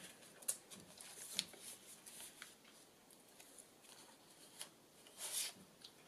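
Faint paper handling: soft rustles and small clicks as paper cards and a tag are slid in and out of a paper pocket, with one brief louder rustle about five seconds in.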